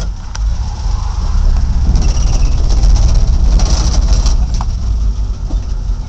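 Truck engine and road noise heard from inside the cab while driving, a low rumble that grows louder about two seconds in.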